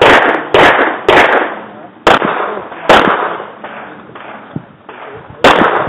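Six handgun shots fired during a practical-shooting stage: three quick ones about half a second apart, two more about a second apart, then a pause of roughly two and a half seconds before a last shot near the end. Each shot trails off in a short echo.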